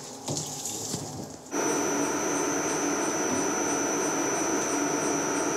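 Light scraping of a spatula over a mesh tray of honey cappings. Then, about a second and a half in, an electric honey-cappings centrifuge press comes in suddenly, running with a steady high whine over a hum.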